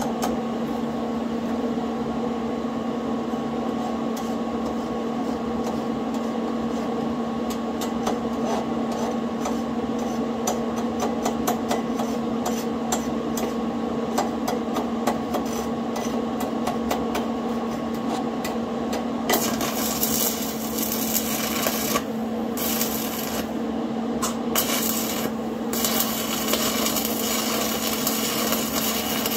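Stick (arc) welder tack-welding steel: crackling and scratching as the electrode is struck, then about two-thirds of the way through the steady frying crackle of the burning arc, which breaks off briefly a few times. A steady electric hum runs underneath.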